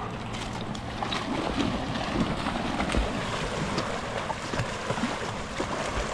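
Dogs splashing into shallow river water and swimming out: a steady wash of sloshing water with many small sharp splashes throughout.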